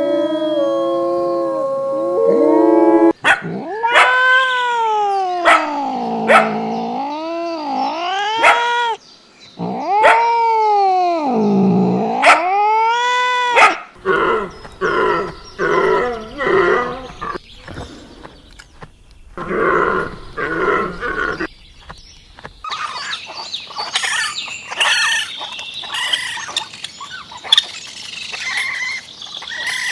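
A sequence of animal calls: long howls sweeping down and up in pitch, then rougher pulsed calls, then high chirping. It opens with a few seconds of music-like steady tones.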